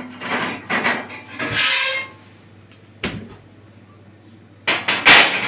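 Steel sheet scraping and sliding across the metal slats of a CNC plasma cutter's bed, with a single knock about three seconds in and a louder metallic clatter near the end as the sheet is set down.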